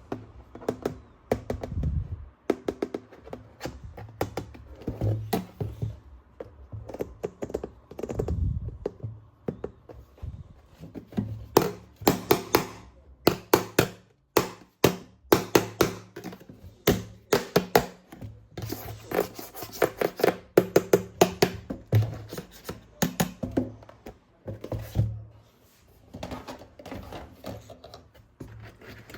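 Plastic toy guns and parts being handled: a long run of irregular clicks, taps and clacks, thickest in the middle.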